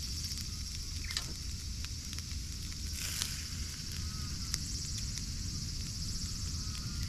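Yakitori grilling over a fire pit: a steady sizzle, with a few sharp crackles and pops from the fire.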